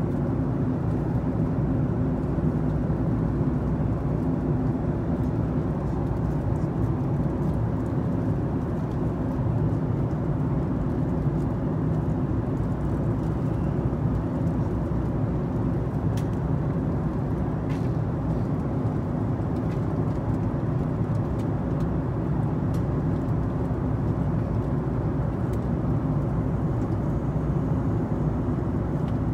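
Steady cabin noise of a Boeing 737-8 MAX in flight: a low, even rush of airflow and engine hum from its CFM LEAP-1B turbofans, with faint steady tones under it.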